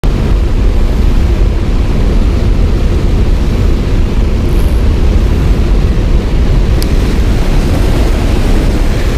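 Steady low rumble of wind buffeting the camera microphone by a river, with a faint click about seven seconds in.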